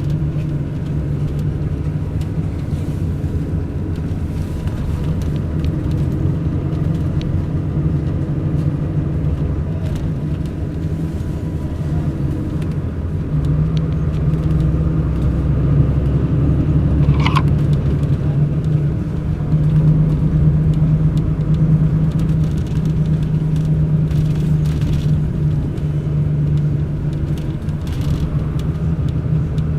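Diesel engine of a Mercedes-Benz O500 RSD BlueTec5 double-decker coach running steadily under way, a low drone that swells a little past the halfway mark, heard from inside the coach. A brief high squeak comes about seventeen seconds in.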